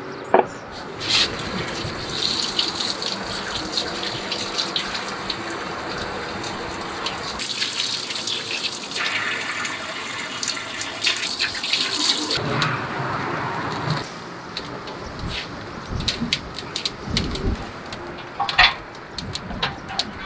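Water running and splashing steadily as hands are rinsed under it, loudest through the middle. Scattered sharp clicks and knocks near the end.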